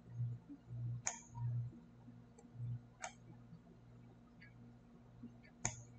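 Computer mouse clicking three times, sharp single clicks about two seconds apart, over a faint low hum that swells in soft pulses during the first few seconds.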